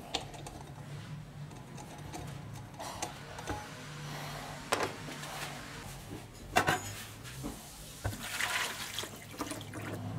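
A few sharp metal knocks, then liquid poured into a small stainless steel tray for about a second and a half, near the end.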